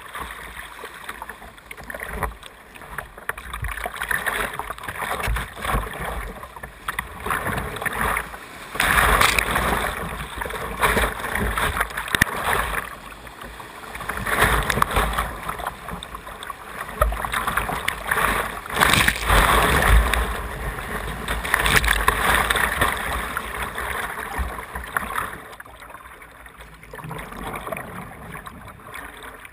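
Whitewater rushing and splashing over the bow of a kayak, close to the water. It surges louder through the middle as the boat runs through the waves, then eases to a softer wash near the end.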